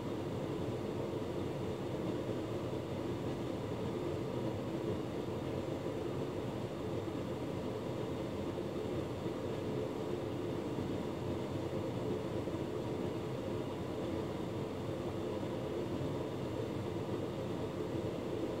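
Hotpoint Ultima S-Line tumble dryer running: the drum turning and the motor and fan whirring in a steady hum.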